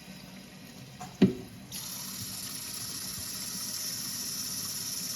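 A knock about a second in, then water starts running steadily from an opened sink valve feeding a 3D-printed mini toilet for a flush test, a continuous hiss.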